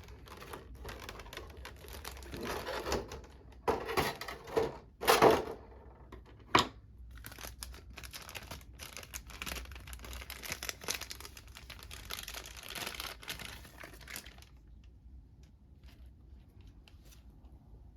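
Prize-figure packaging being handled: crinkling and tearing of plastic and cardboard with scattered clicks and a few louder knocks, dying away about fourteen seconds in.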